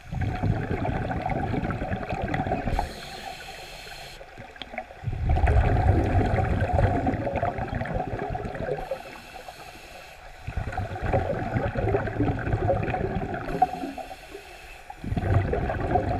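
Scuba regulator breathing heard underwater: long bubbling exhalations about every five seconds, with a softer hiss of inhalation between them.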